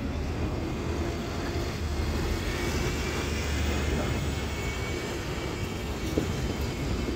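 Diesel engine of a city bus running, a steady low drone amid street traffic.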